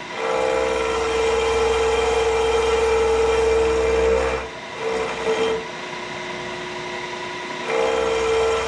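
Machine tool taking a light cut with a carbide cutter across welded cast iron, a steady whining tone over a low hum. The cut breaks off about four and a half seconds in, comes back briefly, and picks up again near the end.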